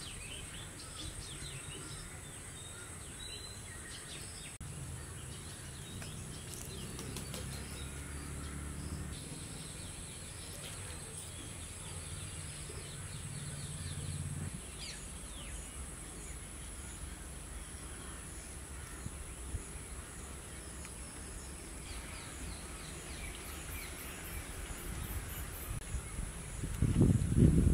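Outdoor ambience: scattered bird chirps over a steady high insect drone and a low rumble, with a louder burst of low rumbling near the end.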